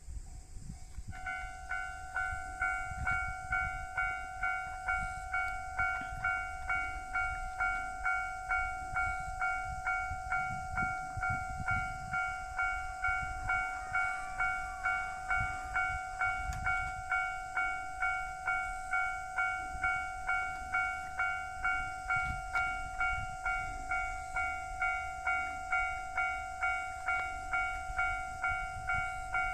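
Japanese railway level-crossing warning bell starting about a second in and ringing steadily, a little under two rings a second: the crossing has been activated by an approaching train.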